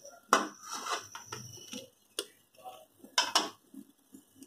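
A few sharp metal clinks, with a close pair near the end: a perforated metal ladle knocking against the kadai and a steel plate as fried bondas are lifted out.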